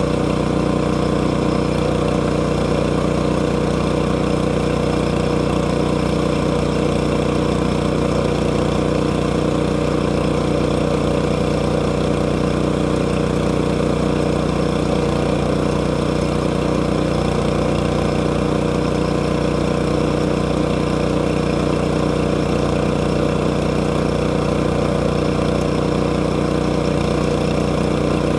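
Engine of a log sawmill running steadily at a constant speed, with no rise or fall in pitch.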